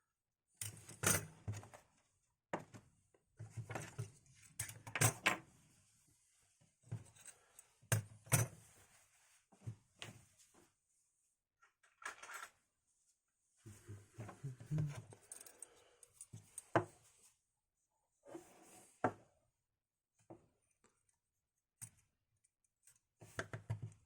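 Irregular small clicks, taps and scrapes from handling a laptop's heatsink, fan and other small metal and plastic parts on a work surface, with quiet gaps between.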